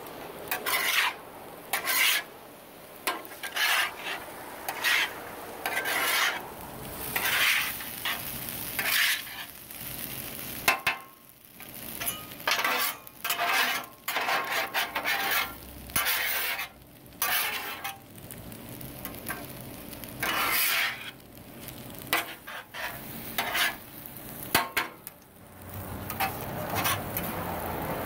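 Rice being scraped, chopped and stirred across the steel top of a Blackstone flat-top griddle in many short, irregular strokes, with the food sizzling underneath.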